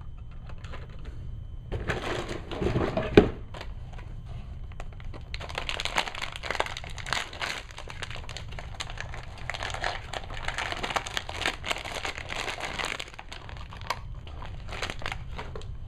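Plastic packaging of Heroclix miniatures crinkling and rustling with small clicks as a pack is handled and opened, with a sharp click about three seconds in and the densest rustling in the middle.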